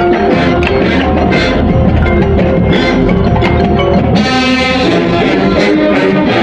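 High school marching band playing its field show live: busy struck percussion with mallet-instrument notes over held tones. A full, bright sustained chord comes in about four seconds in.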